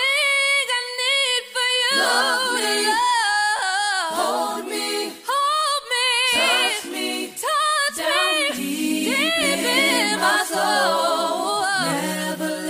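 A cappella love song: several voices singing unaccompanied in harmony, with held notes that waver in vibrato.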